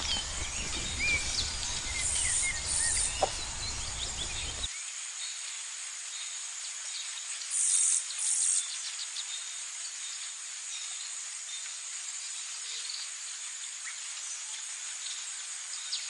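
Pasture ambience: a steady high-pitched insect chirring with scattered bird chirps, the insect sound swelling briefly louder twice. A low rumble underneath cuts off abruptly about five seconds in.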